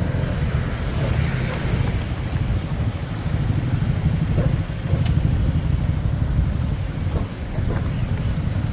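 Road traffic: a steady low rumble of vehicle engines and tyres.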